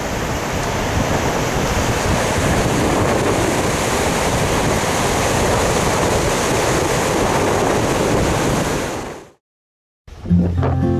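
Ocean surf with strong wind buffeting the microphone, a dense, steady rushing noise. It fades out about nine seconds in, and acoustic guitar music starts near the end.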